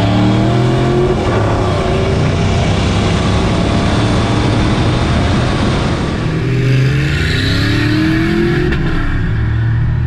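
Ford F-150 5.4-litre V8 engines at full throttle in a side-by-side drag race, the nearer single-turbo truck's engine note climbing as it pulls through the gears, with a drop at a gear change near the end.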